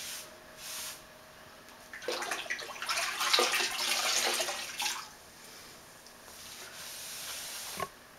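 Damp sponge wiping excess grout off ceramic floor tile: wet swishing and rubbing, louder and sloshier from about two to five seconds in.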